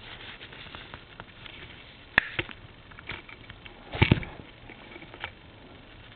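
Clicks and taps of hand tools working on a telephone handset's wiring: a sharp click about two seconds in, and a loud quick double click about four seconds in.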